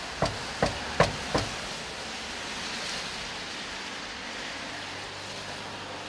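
Four knocks on a door in quick succession, about a second and a half in all, over a steady hiss.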